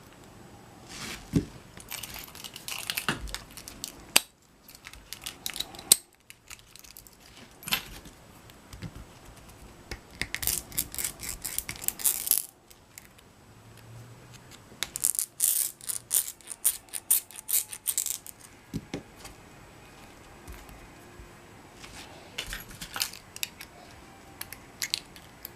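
Small hand tools clicking, tapping and scraping on a metal padlock body while a pin-chamber plug is worked out. The sound comes as irregular metallic clicks, with two denser runs of rapid clicking and scraping in the middle.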